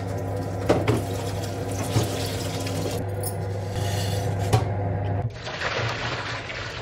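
Tap water running into a stainless steel sink, then a scouring pad scrubbing a steel pan, then tap water pouring onto ice cubes in the sink, with a few sharp knocks along the way.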